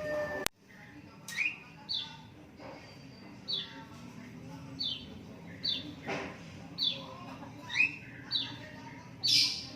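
Lovebirds chirping: about a dozen short, high chirps, each falling quickly in pitch, spaced irregularly about half a second to a second apart.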